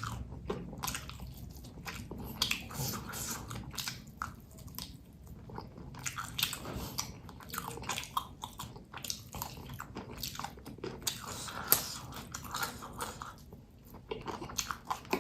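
Close-miked biting and wet chewing of crisp raw cabai gendot chili peppers, with irregular crunches and mouth clicks.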